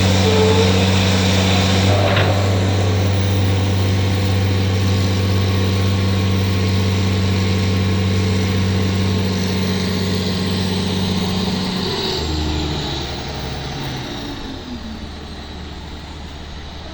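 An engine running steadily, then slowing in steps to a lower, quieter speed about twelve seconds in.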